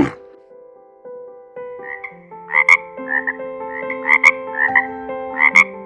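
Frogs croaking: a run of short, high calls, several a second, starting about two seconds in.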